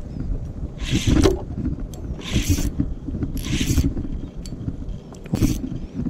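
Water slapping against a small boat's hull in short hissing splashes about every second and a half, over a steady low rumble of wind on the microphone.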